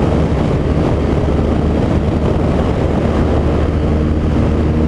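BMW R1200 GS flat-twin engine running steadily at road speed, with wind noise over the microphone.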